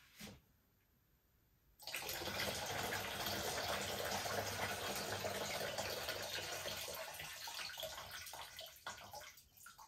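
Water pouring out of a tipped glass orchid vase into a plastic bucket. It starts suddenly about two seconds in, runs steadily, then thins to a trickle and drips near the end.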